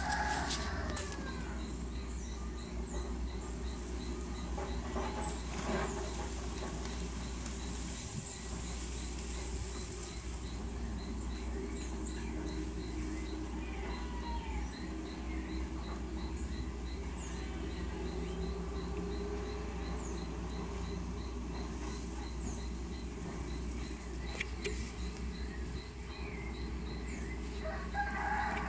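Backyard ambience: a steady, rapidly repeating high chirp like an insect's, with scattered short bird calls, and clucking calls at the very start and again near the end.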